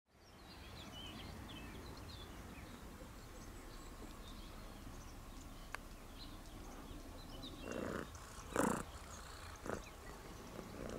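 Quiet outdoor background with a low rumble and faint high chirps. Near the end, three short, loud, rough sounds come from a cat right at the microphone, the middle one the loudest.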